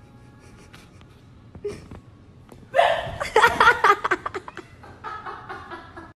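A person laughing hard in a run of short gasping bursts, starting about three seconds in and tailing off near the end, after a few faint knocks.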